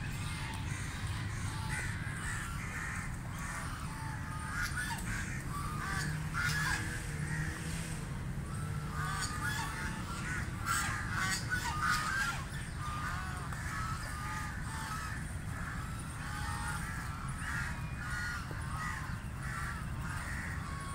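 A flock of white domestic ducks quacking, many short overlapping calls at once, busiest and loudest in the middle stretch.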